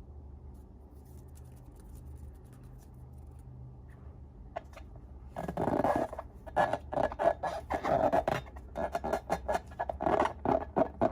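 Close-up slime-making handling noises. A low hum runs for the first five seconds, then from about five seconds in comes a run of irregular crackling, squishing bursts.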